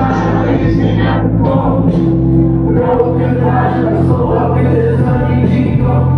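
Live rap performance heard from the audience: a loud backing track with a heavy, steady bass line through the club's sound system, with the rapper's vocals over it and many voices singing along.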